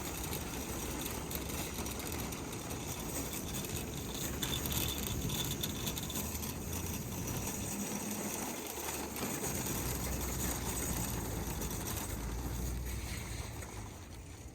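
A loaded shopping cart rolling over pavement, its wheels giving a steady rumble with light rattling.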